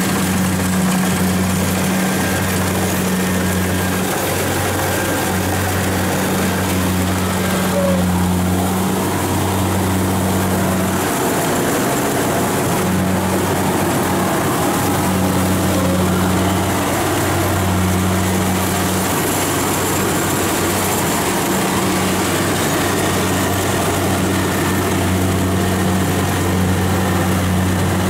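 Kubota DC-70 combine harvester's diesel engine and threshing machinery running steadily as it cuts rice, a continuous low drone.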